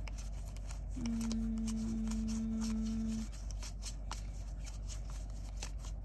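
Tarot cards being sorted through by hand: light clicks and slides of card stock. About a second in, a steady low held note sounds for about two seconds.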